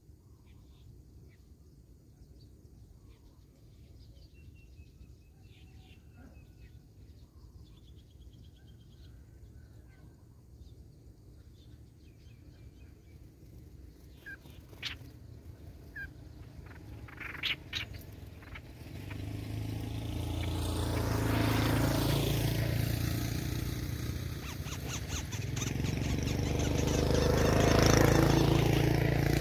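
Faint, scattered chirps of small birds, with a few sharp clicks about halfway through. From about two-thirds in, a motor vehicle passes by twice, each time swelling loud and fading, drowning out the birds.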